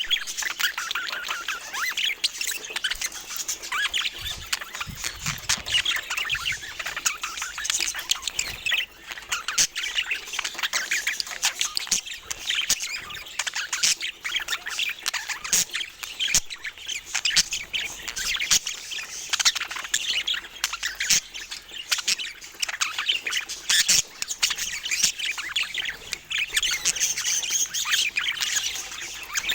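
Budgerigars chattering: a continuous stream of rapid chirps, warbles and squawks.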